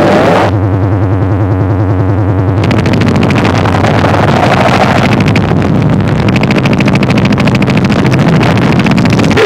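Harsh electronic noise music: a loud, dense low drone chopped by a fast stuttering pulse. A bright hiss cuts in suddenly about two and a half seconds in.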